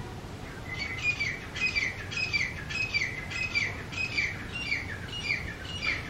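Grey francolin giving its territorial call: a quick run of repeated falling notes, about two a second, beginning about half a second in.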